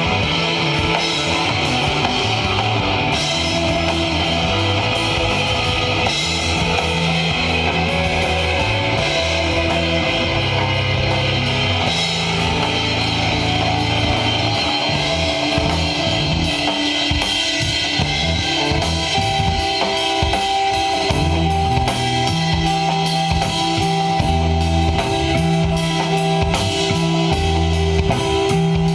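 Live instrumental desert rock jam. A drum kit plays under electric guitar, over held low notes that change every second or two.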